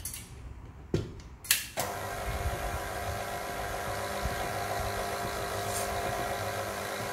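Tilt-head stand mixer: two knocks as its head is lowered and locked onto the bowl, then the motor starts about two seconds in and runs steadily, beating red velvet cake batter in a stainless steel bowl.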